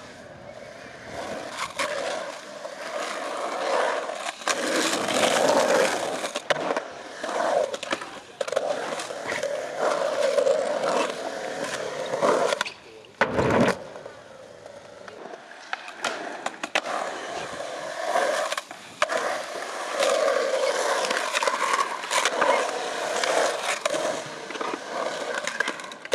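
Skateboard wheels rolling over a concrete bowl, the rolling noise swelling and fading every few seconds as the skater carves through the transitions. Many sharp clacks of the board and trucks hitting the concrete and coping, with one hard smack about halfway through.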